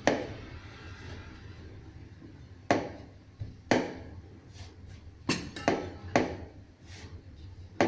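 Wooden rolling pin rolling out chapati dough on a round wooden rolling board: a faint rolling rumble broken by sharp wooden knocks, roughly one a second, as the pin and board knock at each stroke.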